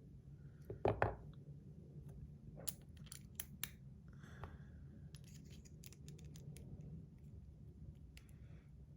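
Faint scattered clicks and scrapes of thick PEI plastic fidget-spinner buttons being handled and pressed onto a spinner, with a louder clatter about a second in and a quick run of clicks near the middle.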